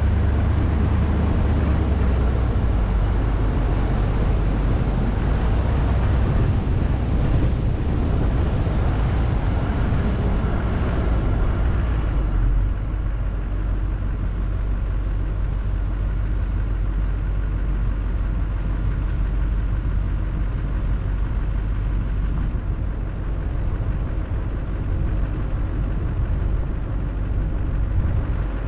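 Vehicle driving on a paved road, heard from a camera mounted on its hood: a steady low rumble of road and wind noise. It eases a little about twelve seconds in.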